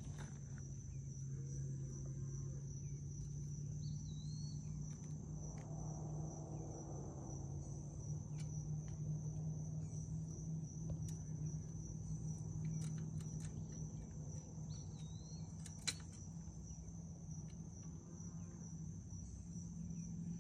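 Insects trilling steadily in one continuous high tone, over a low steady hum. Scattered small clicks and taps come from hands working on the bicycle's front wheel, and a short chirp sounds twice.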